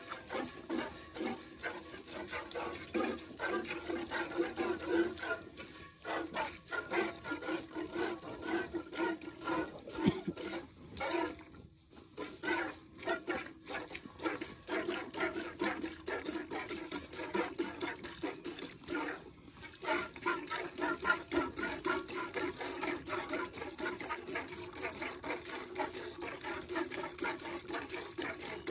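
Milk squirting by hand from a cow's teats into a stainless steel pail: a quick, steady rhythm of hissing squirts hitting the milk, with a brief pause about twelve seconds in and a shorter one near twenty seconds.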